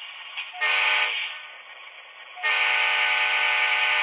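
HO-scale Atlas U30C model diesel locomotive's sound decoder sounding its horn through the model's onboard speaker: a short blast about half a second in, then a long blast near the end. Under both runs the decoder's steady engine hum.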